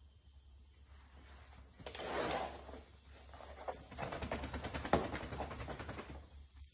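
A Lagotto Romagnolo puppy scuffling on a rug, then its paws pattering in a fast run of quick taps as it scrambles about on the foam play mat and floor.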